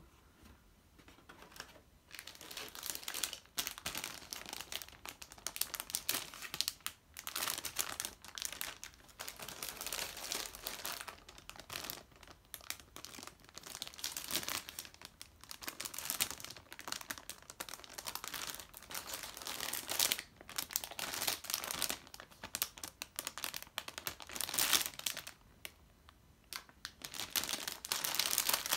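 Clear plastic bags around plastic model-kit runners crinkling and rustling as they are handled in a cardboard box, in irregular bursts.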